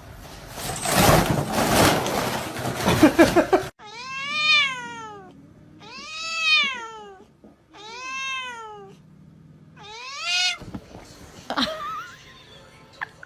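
Domestic cat meowing four times, each meow drawn out about a second, rising then falling in pitch, spaced about two seconds apart. Before the meows, a loud noisy stretch of about three and a half seconds, the loudest sound here.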